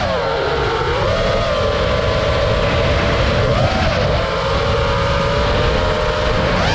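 FPV quadcopter's brushless motors and propellers whining in flight. The pitch holds mostly steady, shifting with throttle: a brief bump in the middle and a rising pitch near the end, over a low rumble.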